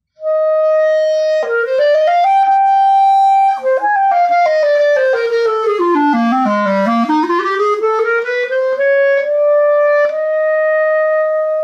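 Solo B-flat clarinet playing a short demonstration phrase: a few held notes, then a stepwise run down into the low register and back up, ending on a long held note.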